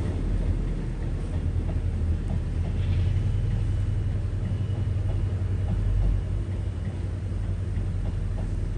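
Class 68 diesel locomotive's Caterpillar V16 engine running under power as the train pulls away, a low steady rumble that eases slightly after about six seconds in.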